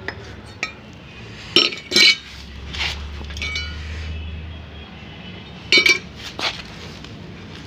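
Small metal vessels and lids clinking and knocking together as they are handled: about half a dozen sharp clinks, some with a short ringing tone.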